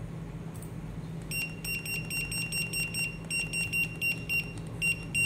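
Wearable ring barcode scanner beeping rapidly at a high, fixed pitch while its red light scans a barcode, starting about a second in and stopping near the end with a few short gaps. A low, steady hum runs underneath.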